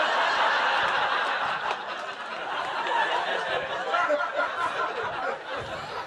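A live audience laughing together, a dense wash of many people's laughter that eases off near the end.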